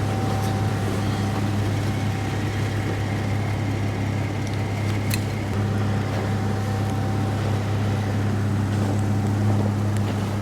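A vehicle engine idling steadily, with a faint steady whine over it that stops near the end.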